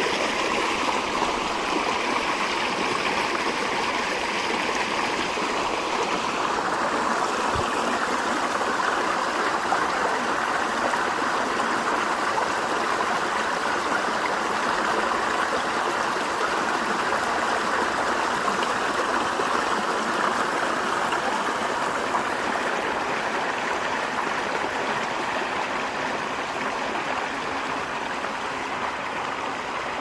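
A river flowing steadily: an even, continuous rush of water.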